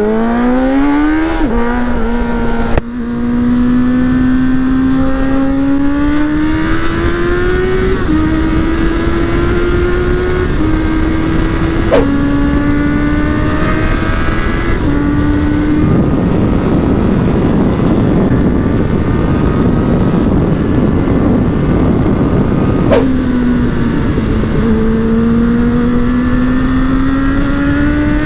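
Suzuki Bandit 600's inline-four engine and exhaust pulling hard through the gears. The pitch climbs, drops sharply at each gear change and climbs again, about half a dozen times. Past the middle a rush of noise largely covers the engine tone for several seconds, and then the engine climbs again after another shift.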